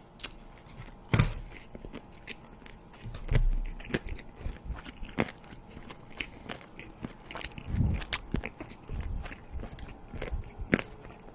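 Close-miked eating: biting and chewing with many small wet clicks and crunches, and a few louder thuds about a second in, around three seconds and around eight seconds.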